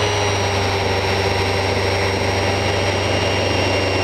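Festool Rotex sander running steadily at full speed with 120-grit paper while cutting into the edge of a wooden board; its motor whine holds at one steady pitch.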